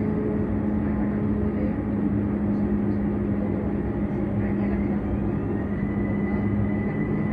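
Vienna S-Bahn electric train running between stations: steady rumble of wheels on rail with a constant low hum, and a thin whine that rises in pitch about four and a half seconds in, then holds steady.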